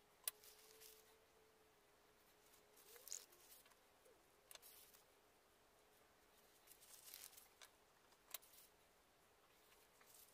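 Near silence broken by a few short, faint rustles and clicks: a crumpled plastic bag crinkling and patting as it is dabbed onto wet acrylic paint on a canvas.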